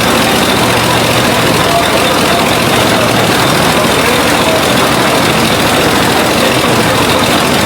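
Heavy machinery running steadily, a loud even mechanical din with no breaks.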